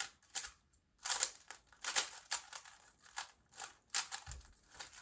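GAN 356 M magnetic speedcube being turned fast during a timed solve: quick runs of light plastic clicks and clacks as the layers snap round, broken by short pauses.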